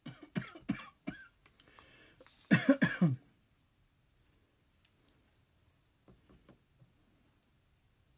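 A man coughing and clearing his throat: a few short coughs in the first second, then a louder burst of three coughs about two and a half seconds in, followed by a few faint clicks.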